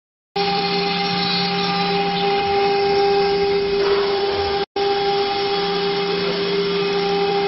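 CNC router spindle running with its end mill cutting acrylic sheet: a steady whine over a hiss of cutting. It starts abruptly just under half a second in and breaks off for an instant about two-thirds through.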